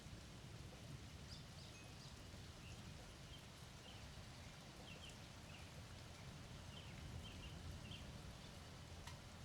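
Near silence: faint, short chirps from small birds come and go irregularly over a low steady rumble.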